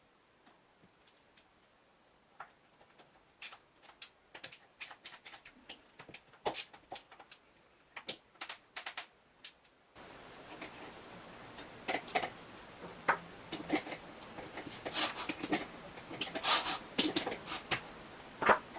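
Irregular light clicks and knocks, as of small hard parts being handled, starting a couple of seconds in. About halfway through, a louder, denser run of knocks begins over a slightly hissier background.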